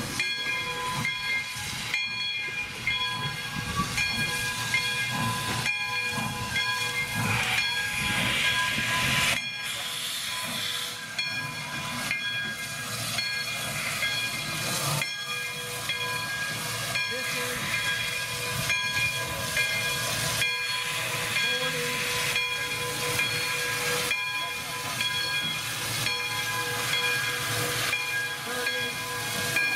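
A Baldwin 4-6-2 Pacific steam locomotive moving slowly, with a steady hiss of steam and a string of soft beats about once a second. A steady whistling tone sits under the hiss.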